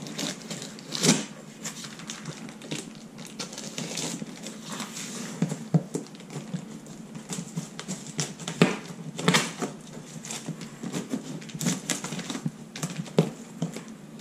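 A cardboard shipping box being worked open by hand: irregular clicks, taps and rustling scrapes of cardboard and packing.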